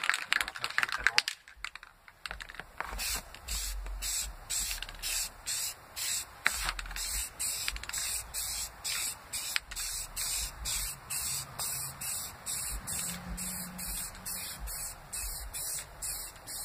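Aerosol spray paint can hissing in short, even bursts, about two a second, as a light coat of paint goes on; louder rustling and handling noise in the first couple of seconds.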